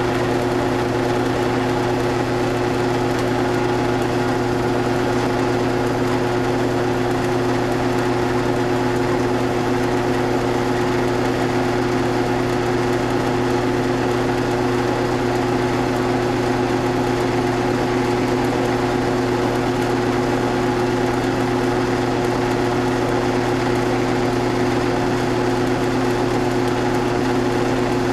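Milling machine spindle motor and drive running steadily, a constant hum with several held tones, as the spinning edge finder is fed up to the workpiece edge.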